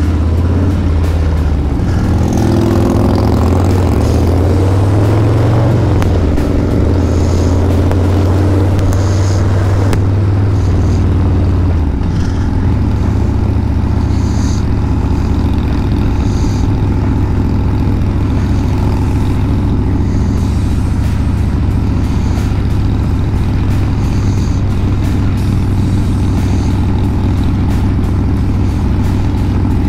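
Harley-Davidson Street Bob 114's Milwaukee-Eight 114 V-twin running through a Two Brothers aftermarket exhaust while riding. The engine note rises under acceleration in the first several seconds, then settles into a steady cruising drone.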